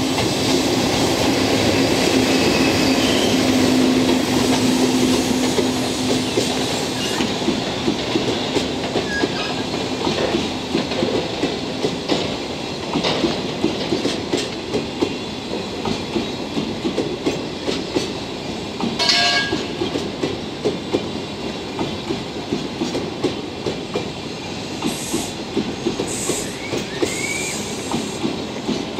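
EF65 electric locomotive rolling slowly past with a steady hum, followed by a string of Chiki flatcars loaded with long rails, their wheels clicking rhythmically over the rail joints. There is a brief high squeal about 19 seconds in.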